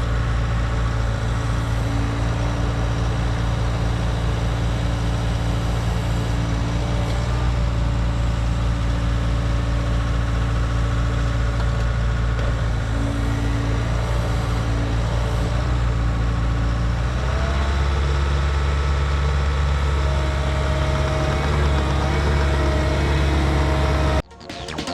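A machine's engine running steadily, its note shifting lower and heavier about two-thirds of the way through. Near the end the sound cuts off abruptly.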